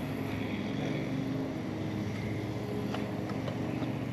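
Steady drone of a motorboat engine, with a few light clicks from the spinning reel a few seconds in.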